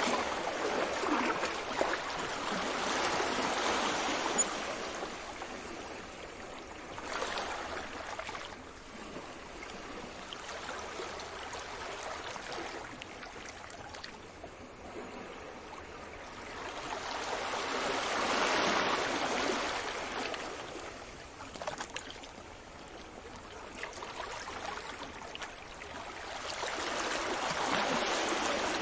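Sea waves breaking and washing in, the surf swelling and fading in slow surges several seconds apart, with a steady water hiss between them.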